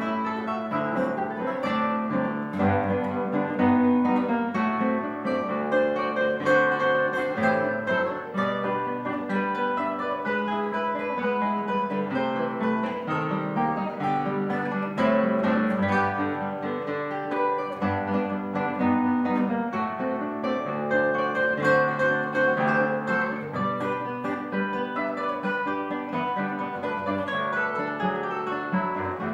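Solo acoustic guitar playing a lively choro: quick plucked melody notes over a moving bass line, continuously.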